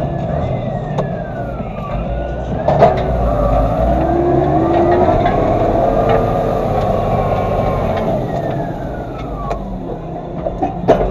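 Massey Ferguson 3115 tractor running steadily under load, with a whine that rises and falls in pitch and a few sharp clicks.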